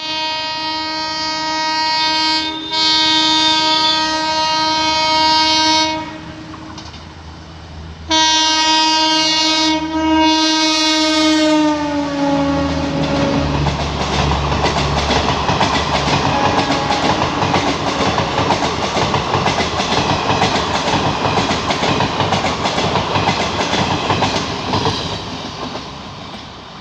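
An Indian Railways WAP-1 electric locomotive sounds its horn in a long blast, then a second blast whose pitch drops as the locomotive passes. The Garib Rath Express coaches follow with a rapid clickety-clack of wheels over rail joints, fading near the end.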